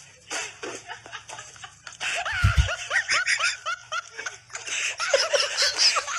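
A man laughing hard: a fast run of high-pitched giggles starting about two seconds in and going on to the end, with a brief low thump just after the laughter starts.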